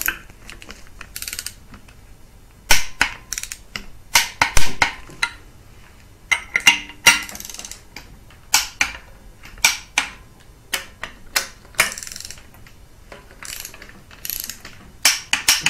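Ratchet wrench clicking in short runs as the AC/alternator bracket bolts are driven in and torqued on the engine block, with pauses between runs.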